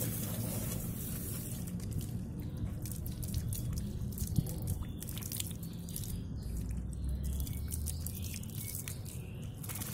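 Water dripping and splashing on wet concrete while a wet cat's fur is rubbed down by hand, with scattered small clicks and one sharper click about four seconds in.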